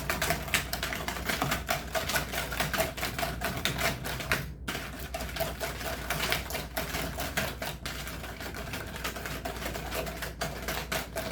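A wire whisk beating eggs and sugar in a bowl, its wires clicking rapidly against the sides.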